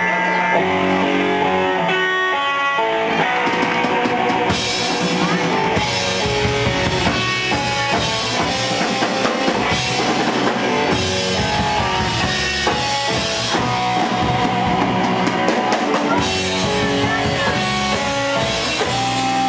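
Live rock band playing: electric guitar, upright bass and drum kit. Picked guitar notes open it, and drums and cymbals come in about four and a half seconds in.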